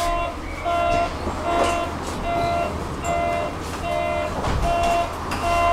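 Tram's electronic door warning signal: a short pitched beep repeating evenly about every 0.8 seconds, over the steady low hum of the tram's interior.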